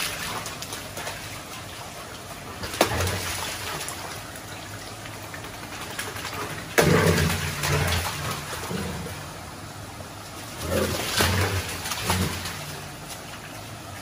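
Dogs splashing as they run through a shallow stream, over the steady sound of running water. The loudest splashes come about three seconds in, about halfway, and again later on.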